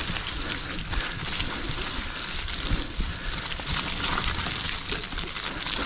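Mountain bike rolling down a muddy dirt trail: tyres running through wet mud with a steady hiss and many small knocks from the bumps.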